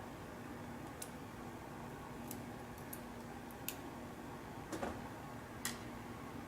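Faint, scattered small metallic clicks, about six over several seconds, as tweezers pick at lock pins and springs in a disassembled pin-tumbler lock, over a faint steady hum.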